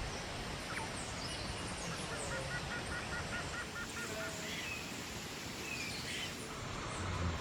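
Wild birds calling over a steady background rush, with a quick run of about ten short notes a little over two seconds in and scattered high chirps.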